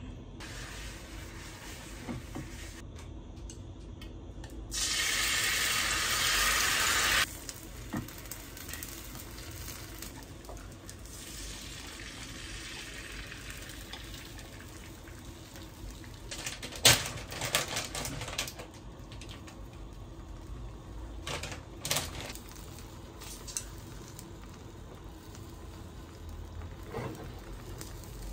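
Egg whites sizzling in a hot rectangular tamagoyaki pan, with a few sharp clicks of utensils against the pan. A loud hiss lasts a couple of seconds near the start.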